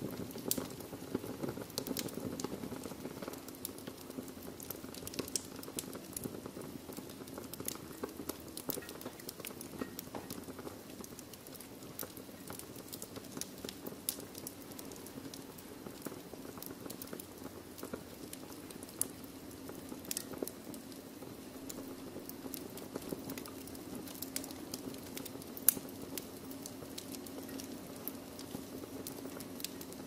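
Wood fire burning in a fireplace: irregular crackles and small pops of burning logs over a steady low hum, with one sharper, louder pop near the end.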